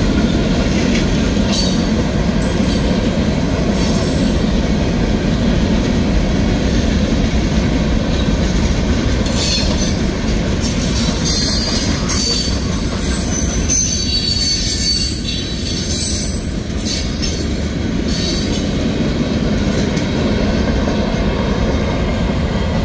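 Freight cars of a CSX manifest train rolling past at speed, a steady heavy rumble of wheels on rail. High-pitched wheel squeal rises and falls in the middle stretch.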